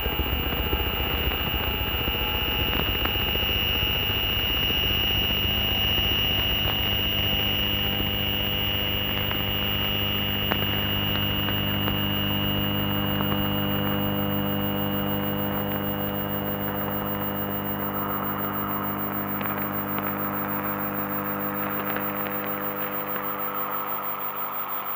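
Experimental electronic drone music: a dense, steady layer of many held tones over a low rumble, with a piercing high tone that fades out about two-thirds of the way through while a brighter hiss rises in its place and the low end thins near the end.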